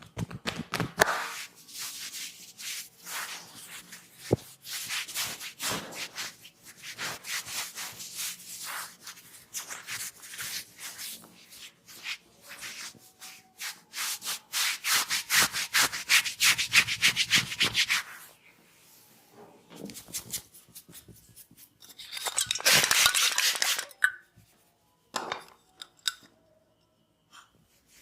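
Hands rubbing over a person's head and hair in a massage: a fast run of rough rubbing strokes. It stops about two-thirds of the way through, with a last loud stretch of rubbing near the end.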